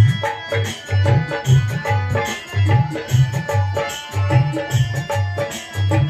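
Instrumental devotional accompaniment: a hand-played dholak and tabla, with an electronic drum pad struck with sticks, keep a steady beat under a harmonium melody.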